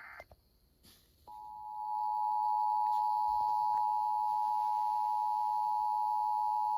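Emergency Alert System two-tone attention signal: a steady, loud, unbroken alarm tone that comes in about a second in. It marks the start of a broadcast tornado warning.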